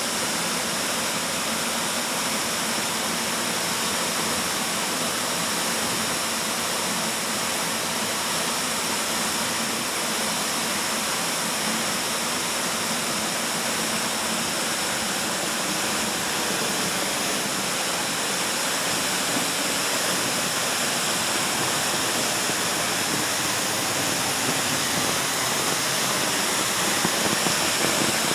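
Waterfall pouring steadily, a constant rushing of falling water echoing in a rock cave.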